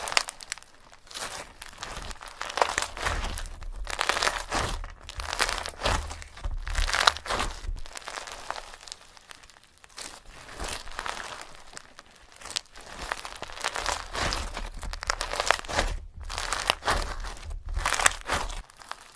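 Crinkly, crunching squishes of fake rice being mashed by hand, coming in bursts with short pauses.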